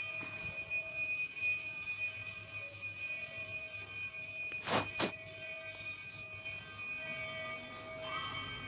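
Steady metallic ringing of temple bells, several high tones held throughout. Just under five seconds in there are two sharp clicks about a quarter-second apart.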